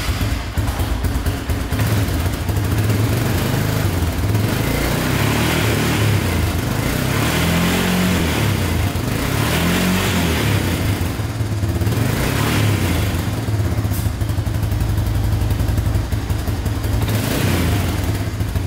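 1998 Honda Fourtrax 300 ATV's single-cylinder four-stroke engine running just after a start, warming up. Its speed rises and falls briefly a few times near the middle.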